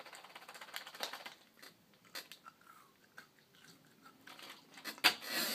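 Chewing gum close to the microphone: soft, irregular clicks and smacks of the mouth. Near the end there is a short, louder hissing burst.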